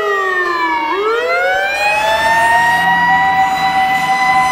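Japanese fire engine (a water-tank pumper) running with its siren wailing: the tone falls to a low pitch about a second in, then rises again and holds high and steady. The truck's engine hums underneath from about two seconds in as it passes.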